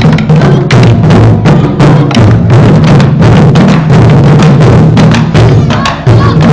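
Taiko drum ensemble playing: large barrel drums and tall rope-laced drums struck with wooden sticks in a loud, fast, dense run of deep beats.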